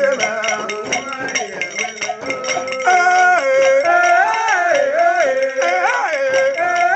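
Group of men singing a chant together to a handheld metal bell struck in a steady beat. The voices swell to full strength about three seconds in.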